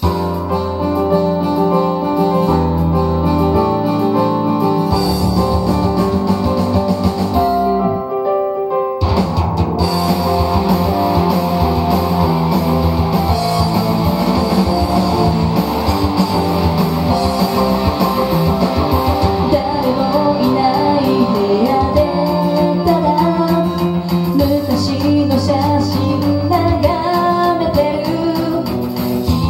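Karaoke backing track of a pop-rock song, a band with electric guitar and drums; it drops out briefly about eight seconds in before the full band comes back, and a woman's voice starts singing along near the end.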